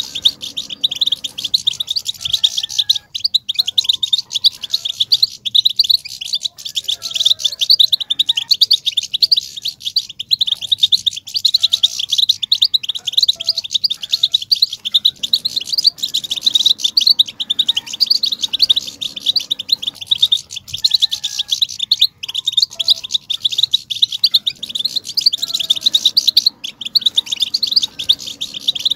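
European goldfinches twittering nonstop: a dense, rapid chatter of high notes, the 'batbata' song that bird keepers use to stir male goldfinches into singing.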